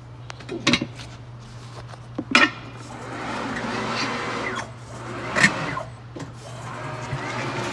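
Steel tire iron clinking against an alloy wheel while a tire's lubed bead is levered over the rim by hand, with the rubber bead rubbing as it is worked on. Three sharp clinks, with longer stretches of rubbing between them.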